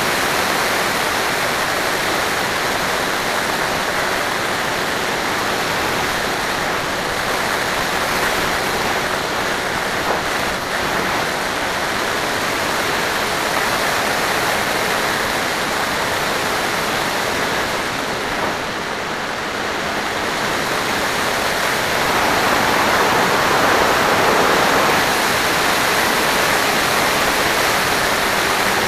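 Steady rushing of wind and propeller on the onboard camera of an FPV aircraft in flight, with a faint steady hum underneath. It dips briefly about two-thirds of the way through, then swells again.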